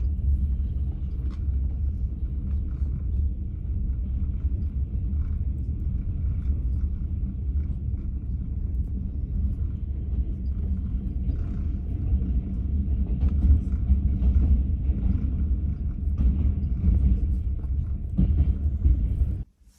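Passenger train carriage in motion: a steady low rumble with faint irregular knocks.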